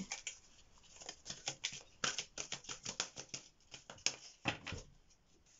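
A deck of cards being shuffled by hand: a quick, irregular run of papery clicks and flicks that thins out near the end.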